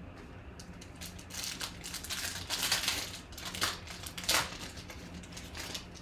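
Crinkling of a 2019 Panini Select football card pack wrapper being torn open and handled, with two sharper crackles a little past the middle.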